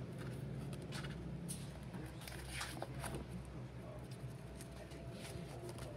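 A ring binder and its paper worksheets being handled and turned, giving scattered rustles and light clicks over a steady low hum.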